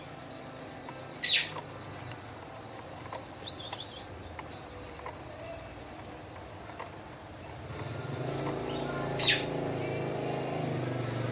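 Yorkshire canary giving a few short call notes: a loud downward chirp about a second in, a quick cluster of chirps around three and a half seconds, and another loud downward chirp near the end. A low engine drone builds in the background from about eight seconds in.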